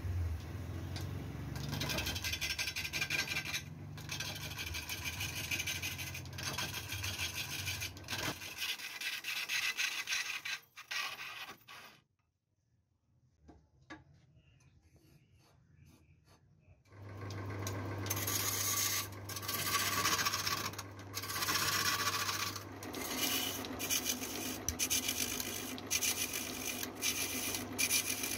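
A tool scraping and filing on the wooden shell of a dhol drum in repeated strokes. The work stops for about five seconds near the middle, then resumes with a low steady hum beneath it for a few seconds.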